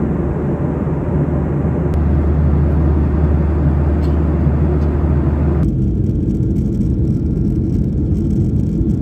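Steady cabin drone of a jet airliner in flight: a strong low hum under a broad hiss. A little past halfway it cuts abruptly to a duller, steady rumble with far less hiss.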